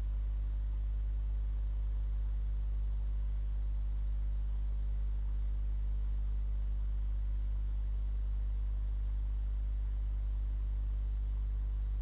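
Steady low electrical hum with faint hiss on the nest-box camera's audio; the roosting barn owls make no calls.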